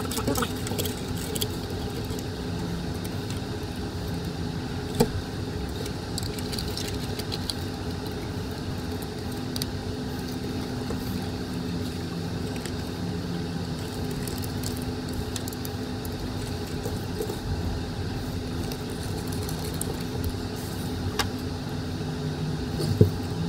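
Wires and plastic plug connectors of an e-bike controller's wiring harness being handled, giving scattered small clicks and rustles, the sharpest about five seconds in and another near the end, over a steady low background hum.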